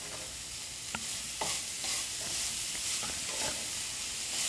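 Grated carrots and sugar sizzling in ghee in a honeycomb-textured stainless steel pan while a spatula stirs them, with a few sharp scrapes or taps of the spatula against the pan. The sugar is dissolving and drawing water out of the carrots, so the mixture is moist again.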